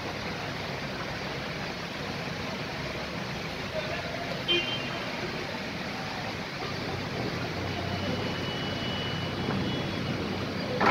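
Traffic on a rain-soaked, flooded street: a steady hiss of cars driving through water. A car horn gives a short toot about four and a half seconds in.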